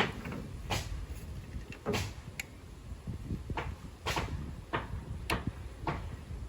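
Irregular sharp clicks and knocks, about one a second, from hard objects being handled and set down, over a low rumble.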